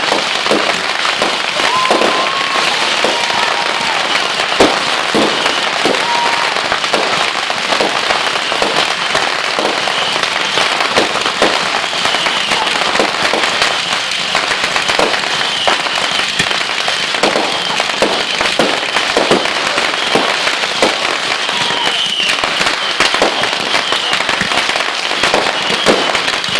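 Fireworks going off, with rapid, continuous crackling and popping.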